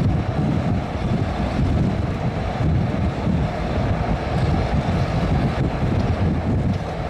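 ISAP 11th-generation electric train running along open track: a steady rumble of wheels on rails, with wind buffeting the microphone at the open window.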